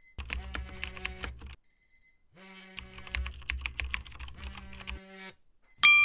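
Computer keyboard typing sound effect: runs of quick key clicks, pausing briefly about two seconds in. Near the end a sudden louder sound with ringing tones cuts in.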